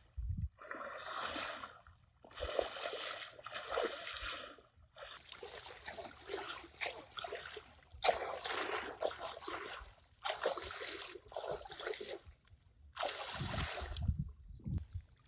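Water splashing in a run of short bursts, each up to about a second and a half long, with brief pauses between.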